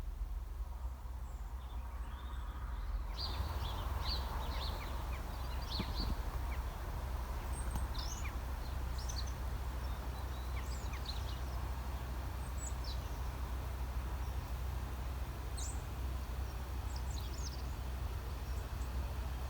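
Small birds chirping and twittering in short, scattered calls, starting about three seconds in, over a steady low rumble.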